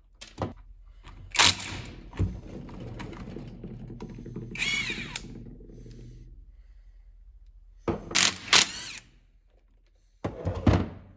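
Hand tools knocking and clanking on an old tractor transmission case as the bearing retainer bolts are worked loose: a string of sharp metallic thunks and clicks, with a ringing rumble after the first hits and two quick clusters of clicks near the end.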